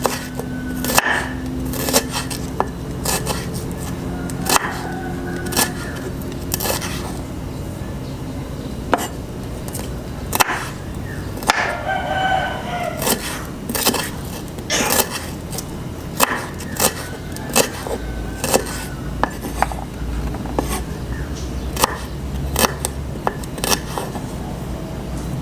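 Kitchen knife slicing peeled garlic cloves on a cutting board: irregular sharp taps, about one or two a second. A rooster crows once about twelve seconds in.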